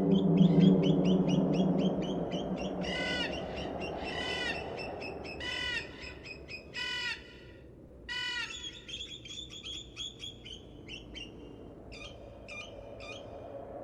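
Birds calling: fast runs of high chirps, and from about three seconds in a loud harsh call repeated five times, roughly every second and a half. A low humming tone, the loudest thing at the start, fades out within the first two seconds.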